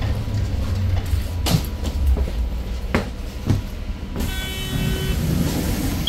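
Interior of a 2019 Daewoo NEW BS090 city bus with its CNG engine: a steady low rumble with scattered knocks and rattles. About four seconds in a short electronic beep sounds for about a second as a hiss starts.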